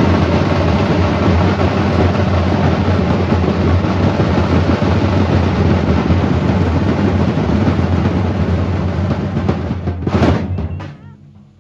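Live festival band drumming, loud and dense with a heavy low end. About ten seconds in it breaks off with a last burst of hits and dies away.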